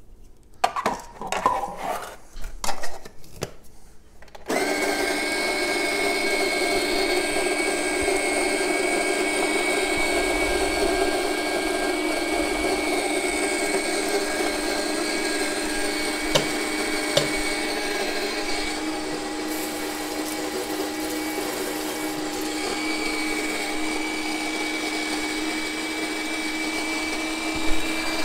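Fellow Opus 40 mm conical burr grinder grinding a 16 g dose of coffee beans: the motor starts suddenly about four and a half seconds in, after a few clicks, and runs on steadily with a constant whine.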